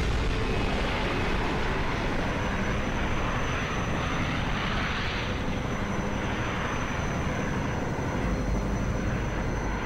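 Military helicopters flying over in a battle scene: a steady, dense rumble of engine and rotor noise that holds at an even level, with no distinct blasts.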